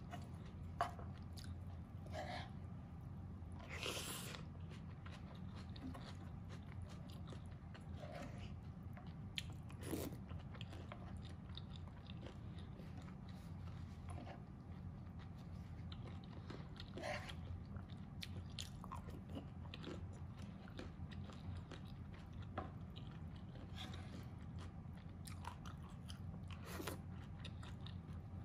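Close-miked chewing and mouth sounds of a person eating mapo tofu with rice: soft wet chewing with scattered small clicks, and a louder noisy burst about four seconds in. A faint steady low hum runs underneath.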